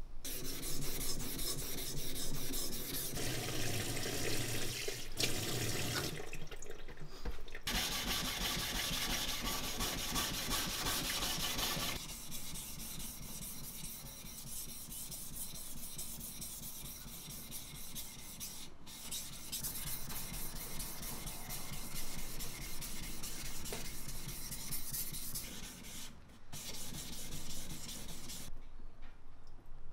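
A Munetsugu yanagiba kitchen knife blade being stroked back and forth on a wet whetstone: a steady scratchy rubbing with a few short pauses, louder in the first part and softer later on.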